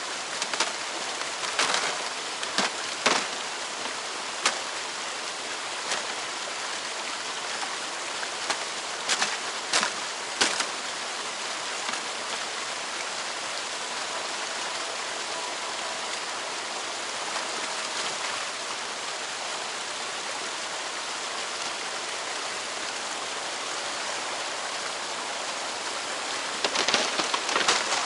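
Water rushing steadily through a gap in a beaver dam. Scattered sharp cracks and knocks sound over it in the first ten seconds, and there is a brief burst of splashing and rustling near the end as hands reach into the water at the dam.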